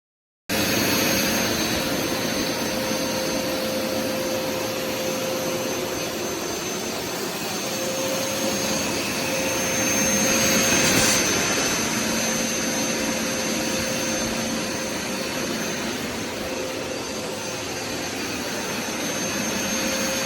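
Hoover SmartWash+ carpet cleaner running: its suction motor makes a steady whining hum that swells and eases slightly. It cuts in suddenly about half a second in.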